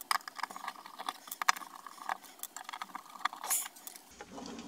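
Small screws being backed out of a 3D-printed plastic enclosure with a hand screwdriver: a run of light, irregular clicks and scrapes, with a louder scrape of the plastic box being handled about three and a half seconds in.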